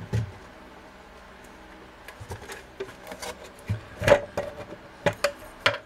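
A plastic paper-scoring board being set down and shifted into place on a craft mat. There is a low thump at the start, then scattered clicks and knocks, the sharpest about four seconds in.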